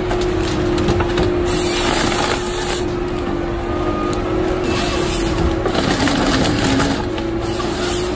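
Tigercat 855 tracked harvester with a 570 harvesting head running with a steady hum while the head grips and saws through a standing tree. Two louder bursts of sawing and cracking wood come about a second and a half in and about five seconds in.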